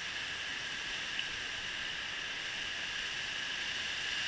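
Steady rushing of creek water spilling over a low concrete dam and running through shallow riffles.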